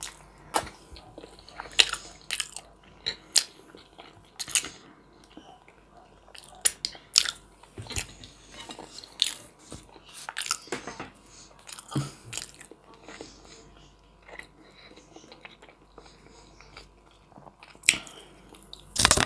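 Close-up mouth sounds of eating: chewing and biting, with irregular sharp clicks and wet smacks, as pan-fried chicken thigh and a lavash wrap filled with cabbage salad are eaten.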